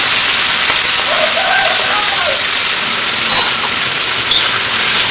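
Thinly sliced onions sizzling in hot oil in a kadai, a steady hiss, just after being added to the pan.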